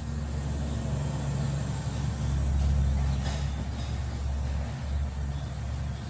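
A low, steady motor rumble with a steady low hum in it, swelling a little in the middle.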